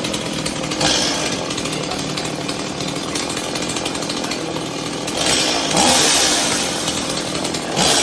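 Stihl battery chainsaw running with its chain spinning, surging louder each time the trigger is squeezed: about a second in, for a second or so around the middle, and again near the end.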